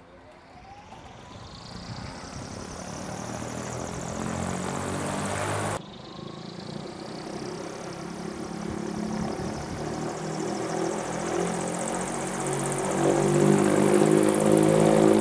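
Electric motor test rig spinning a propeller up to speed: a rising electric whine under a propeller whoosh that grows steadily louder. The sound cuts off abruptly about six seconds in, then builds again to its loudest near the end.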